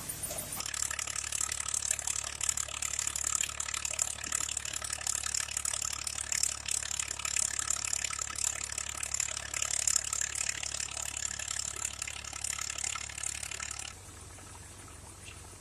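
Dense, rapid mechanical clicking and rattling from a machine's moving parts. It starts about half a second in and stops abruptly near the end.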